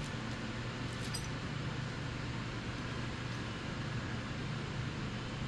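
A motor running steadily, a constant low hum under an even hiss, with no change in speed.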